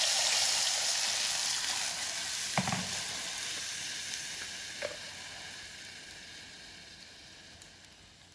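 Water poured into a hot aluminium pot of browned pork sizzles with a loud hiss that fades steadily away as the pour ends and the liquid settles. Two light knocks, about two and a half and five seconds in.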